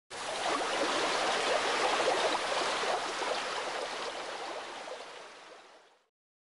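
Steady rushing noise that fades out over the last couple of seconds.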